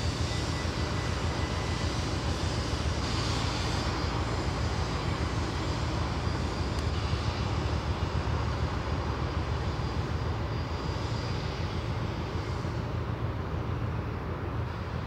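Passing cargo ship's diesel engine and propeller running as a steady low drone, with the hiss of churning wash from its stern.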